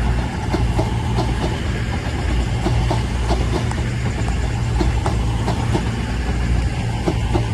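Avanti West Coast Class 221 Super Voyager diesel-electric multiple unit moving slowly through the platform, its underfloor diesel engines giving a steady low hum. Wheels click over rail joints a few times a second.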